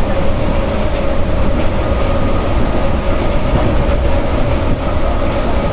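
Moving passenger train heard from inside the carriage: a steady loud rumble of wheels on rails with a constant hum running through it.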